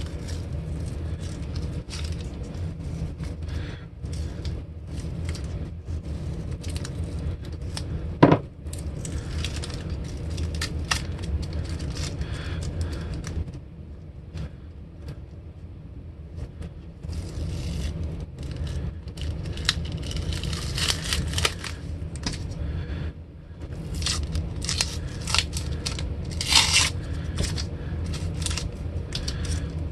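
Green painter's masking tape being peeled off a freshly painted guitar body, with tearing and crackling and the crinkle of loose tape and masking paper. One sharp click about eight seconds in, with louder bursts of peeling near the end, over a steady low hum.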